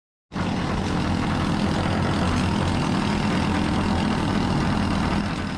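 Steady drone of heavy machinery with a constant low hum, starting just after the beginning and fading near the end.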